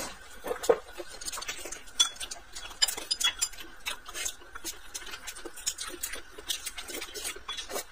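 Close-up eating sounds from a person chewing a kelp-wrapped rice ball: irregular wet clicks and smacks of the mouth.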